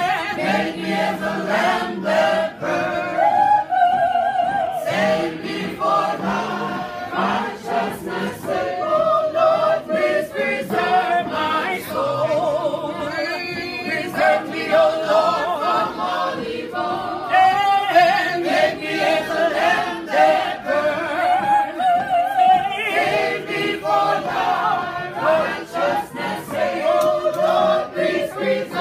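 A mixed choir singing together as it marches, many voices on a sustained melody, with frequent sharp beats under the singing.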